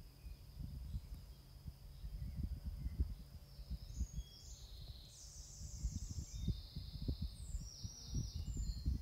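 Gusty foehn wind buffeting the microphone in irregular low gusts. A bird sings a short burst of high chirps in the middle.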